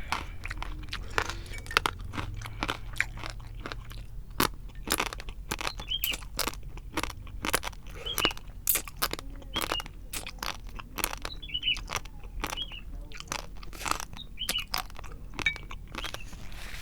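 Close-miked eating of spicy instant noodles in soup: steady chewing with many sharp wet clicks and mouth smacks, a few each second.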